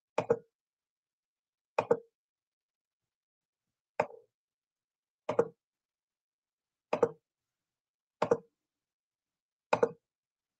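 Seven short double clicks, roughly one every one and a half seconds, with dead silence between: a computer mouse being clicked, each click a press and release, picked up by the laptop microphone.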